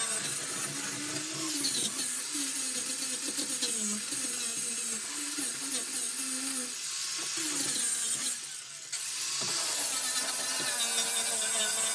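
Grinder running against old body filler on a car's steel floor pan, its motor pitch wavering as it bites and eases off. It lets up briefly a little past two-thirds of the way through, then starts grinding again.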